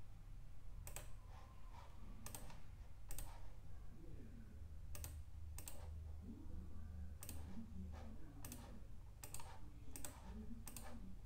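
Computer mouse button clicking about a dozen times at an uneven pace, each click picking a letter on an on-screen keyboard. The clicks are faint, over a low steady hum.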